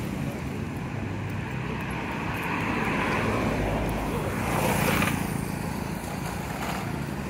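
Street traffic: motorcycle and car engines running along the road, with one motorcycle passing close about five seconds in.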